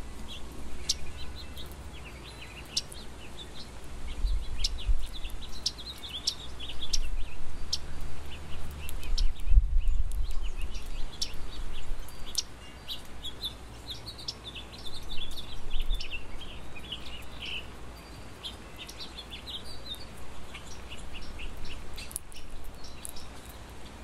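Small songbirds chirping: many short, high call notes, busiest in the first two-thirds. A low rumble underneath swells twice, about four and ten seconds in.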